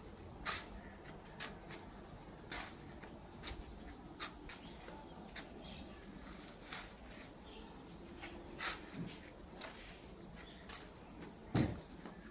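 A steady high-pitched insect trill, with scattered sharp clicks and scuffs and one louder low thump near the end.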